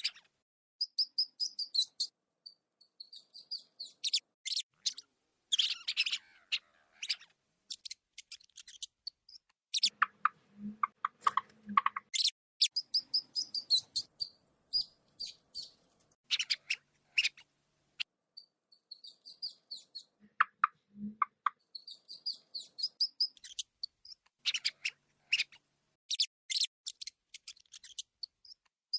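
Rats squeaking: quick runs of short, very high-pitched squeaks in bursts with pauses between them, with a few lower squeaks about ten seconds in and again near twenty seconds.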